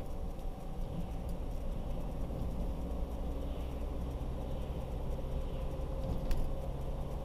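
Car driving along: steady engine and road rumble, with a single sharp click about six seconds in.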